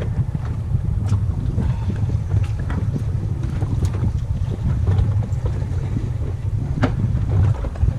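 Wind buffeting the microphone aboard an offshore fishing boat: a steady low rumble, with a few sharp knocks, the clearest about seven seconds in.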